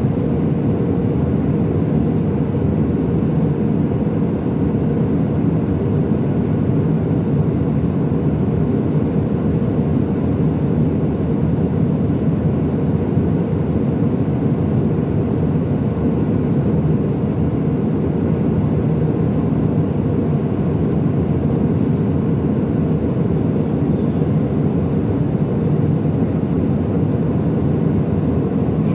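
Steady cabin noise inside an Airbus A319-100 in flight: the low, even drone of the engines and the rush of air over the fuselage, heard from a window seat over the wing.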